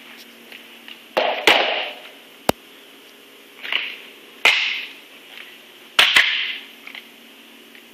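A chalk line snapped against a concrete floor: about five sharp snaps, most with a short hiss around them.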